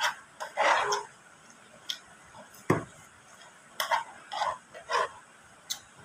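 Close-up eating sounds: several short slurps of warm soup off a metal spoon, with mouth sounds between them and one sharp click a little before the middle.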